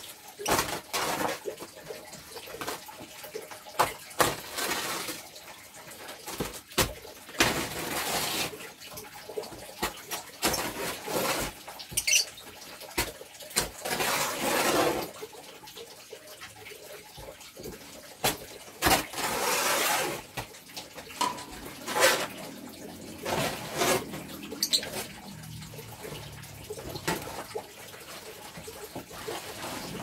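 Lovebirds moving about a wire cage floor: irregular clicks, taps and short scuffling bursts, with a few brief high chirps.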